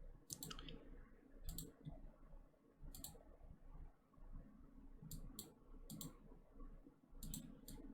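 Faint computer mouse clicks, about ten of them at irregular intervals, some in quick pairs, over near silence.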